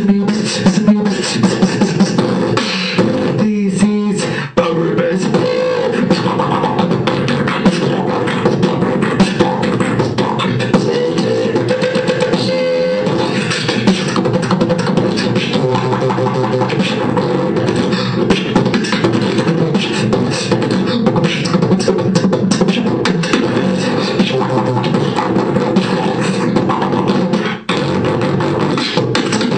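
Beatboxing: a person making drum-like clicks, snares and bass with the mouth in a dense, unbroken rhythm, with brief breaks about four and a half seconds in and near the end.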